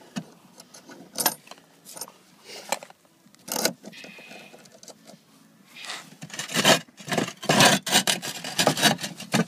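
Metal clinks and scrapes from pliers working a steel roof-hook bracket, then a run of loud scraping and knocking in the last few seconds as a roof tile is slid back into place over the hook.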